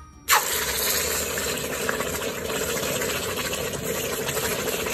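A hot investment-casting flask is plunged into a bucket of water to quench it. It sets off a loud, steady hiss of boiling water and steam as the plaster breaks up, starting suddenly just after the start.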